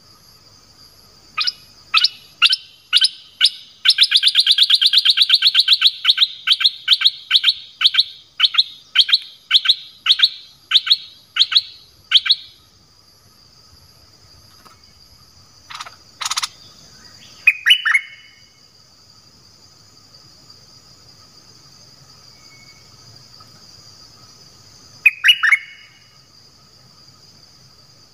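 A caged male nok dok taeng decoy bird singing: a run of sharp, falling notes that speeds up into a fast trill about four seconds in, then slows back to separate notes and stops about twelve seconds in. A few short single calls follow later. A steady high drone runs underneath.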